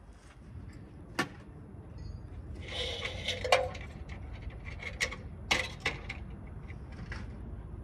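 Scattered sharp clicks and knocks of hard parts and tools being handled, with a brief scraping rustle about three seconds in and the loudest knock just after it, over a steady low rumble.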